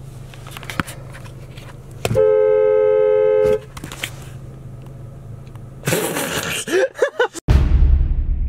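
Car horn giving one steady honk of about a second and a half, heard from inside the car over a low engine hum. About six seconds in come sweeping glides, then loud bass-heavy music near the end.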